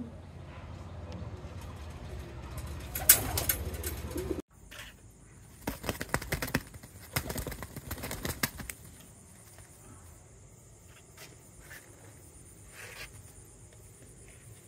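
Domestic pigeons: low cooing for the first few seconds, then wing flapping in a run of quick bursts about halfway through as a pigeon is tossed into the air, followed by faint handling sounds.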